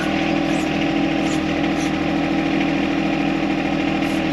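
John Deere compact tractor's three-cylinder diesel engine running steadily at low idle.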